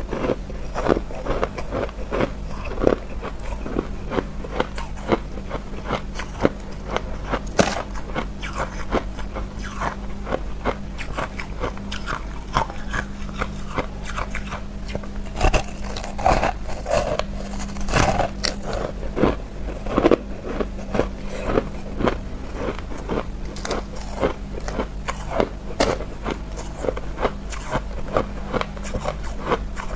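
Close-up biting and chewing of a frozen block of crushed ice: dense, sharp crunches and crackles one after another, over a steady low hum.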